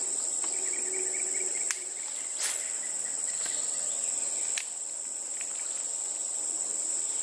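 A steady, high-pitched drone of insects, with a few short sharp clicks in the middle.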